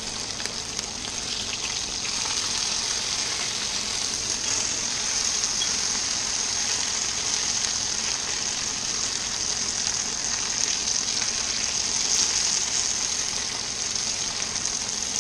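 Breaded fish fillets frying in hot oil in a frying pan: a steady sizzling hiss that grows a little louder about two seconds in.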